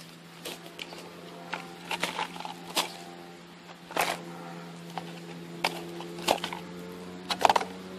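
Thin cut plastic bottles crinkling and clicking as they are handled and set down on leaf litter: a scattered string of sharp cracks, the loudest near the end.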